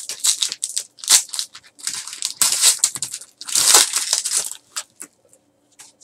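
Foil wrapper of a Panini Select basketball card pack crinkling and tearing as it is ripped open by hand, a run of sharp crackles, loudest in the middle, that stops near the end.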